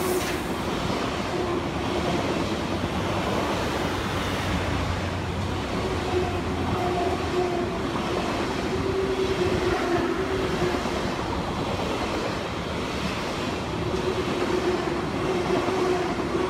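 SBB ICN (RABDe 500) tilting electric train, two units coupled, passing close by: a steady rolling noise of wheels on rail with a hum running under it.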